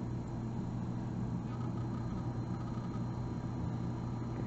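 Steady low background hum, unchanging throughout: room tone.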